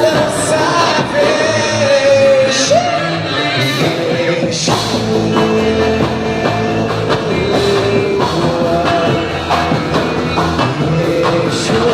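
Live band playing rock-style worship music, with drums, guitars and a singing voice carrying a sustained, gliding melody.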